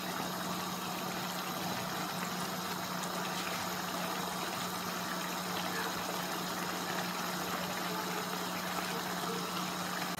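Tomato-based paella sauce with chicken and seafood simmering in a wide pan on a gas burner: a steady bubbling hiss with a faint low hum underneath.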